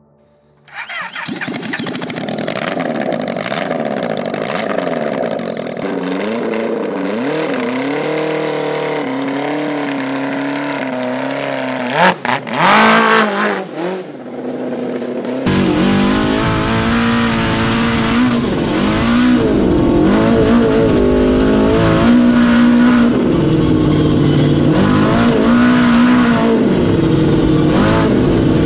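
Supercharged Yamaha RX1 snowmobile engine, a four-cylinder four-stroke, running without a muffler in a Triumph Spitfire as the car is driven. The engine note rises and falls with the throttle and is briefly loudest around twelve seconds in. From about fifteen seconds in it is heard from inside the cabin with a deep rumble.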